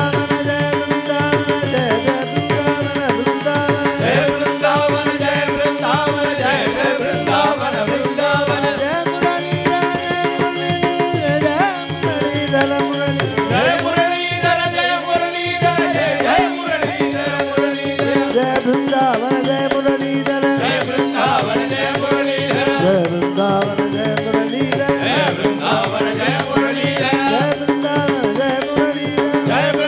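Devotional bhajan music: a melody over a steady held drone with tabla, and the congregation clapping along.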